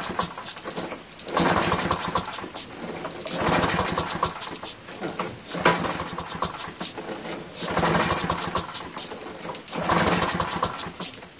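Briggs & Stratton Quantum single-cylinder four-stroke engine on a Craftsman self-propelled lawn mower, running unloaded just after starting from a carburetor clean. Its sound swells and fades about every two seconds.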